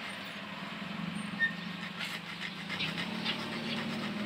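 Car engine running with a steady hum, shifting slightly in pitch about three seconds in.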